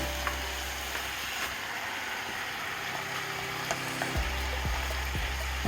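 Chicken pieces sizzling as they fry in onion-tomato masala in a pan, being stirred, with a few sharp clicks of the spoon against the pan.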